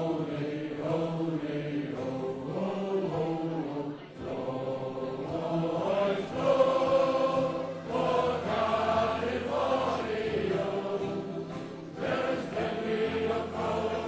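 A group of men singing a song together as a choir.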